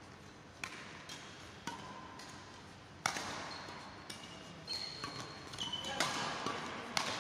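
Badminton rackets striking a shuttlecock in a fast doubles rally: a string of sharp hits, with court shoes squeaking briefly on the hall floor in the second half.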